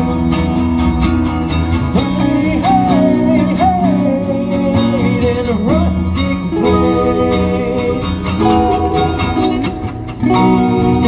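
Live acoustic guitar and electric guitar playing together in a passage without words, with a lead melody that slides and bends in pitch over the chords. The music drops briefly about ten seconds in, then comes back.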